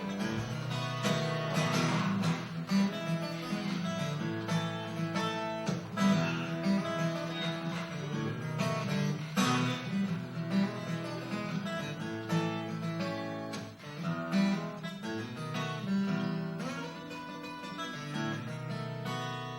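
Acoustic guitar playing an instrumental break in a blues song, strummed and picked notes in a steady rhythm.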